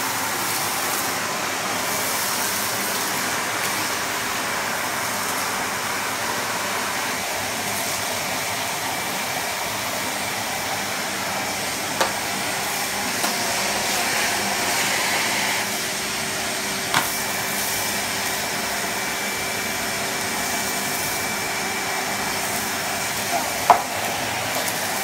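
Numatic Henry HVR200-22 cylinder vacuum cleaner running steadily on its higher of two speeds, its floor tool sucking on a carpet. There are a few sharp clicks.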